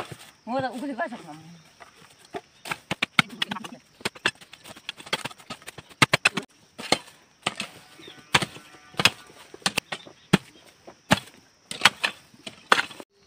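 A kodalo (Nepali hoe) chopping into the ground again and again to dig out plant stumps: irregular sharp chops and knocks, one to three a second, with a voice briefly about half a second in.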